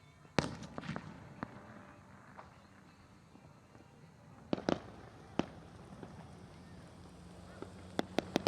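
Fireworks going off in scattered sharp bangs: the loudest just after the start, a few more over the next second, a couple more midway, and a quick cluster of three near the end.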